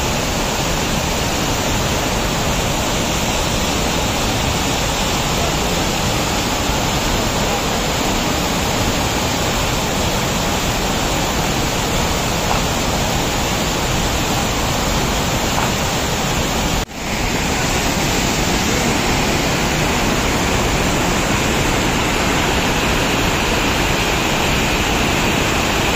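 Loud, steady rush of river rapids and waterfall, white water pouring over rocks. The sound drops out for an instant about two-thirds of the way through, then comes straight back.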